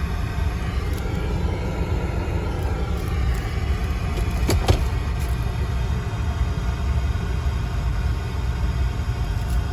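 2020 Cadillac Escalade idling with a steady low rumble, and a sharp double click about four and a half seconds in.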